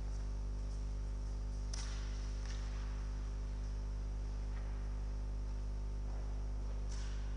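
Steady electrical mains hum with many overtones. A couple of faint knocks come about two seconds in and near the end.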